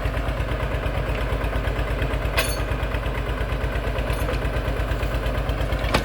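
Eicher 242's single-cylinder diesel engine running steadily at low speed, about 1000 rpm, with a fast even beat. There is a short click about two and a half seconds in.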